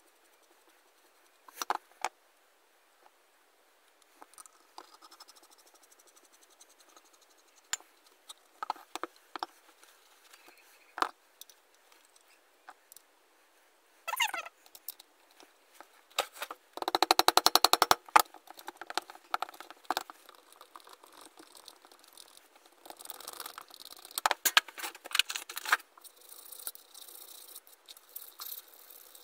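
Metal parts of a hand drill clicking and knocking as it is reassembled by hand, with a loud fast run of clicks lasting about a second and a half partway through. Near the end, a steel blade scraping on the drill body.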